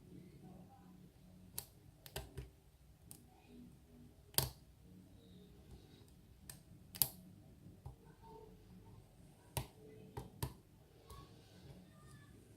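Sharp, irregular clicks of a lock pick working the pins of a pin-tumbler challenge lock under tension, pins clicking as they are pushed and set. About eight separate clicks, the loudest about four seconds in.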